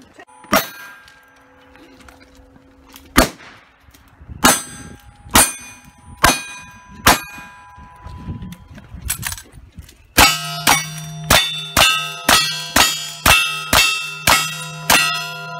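Gunshots at steel targets, each hit answered by the clang and ringing of the plate: a handful of shots about a second apart early on, then after a pause a fast string of about ten single-action revolver shots, roughly two a second, the steel ringing on between them.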